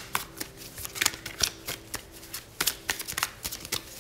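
A tarot deck being shuffled by hand: a run of quick, irregular card clicks and slaps.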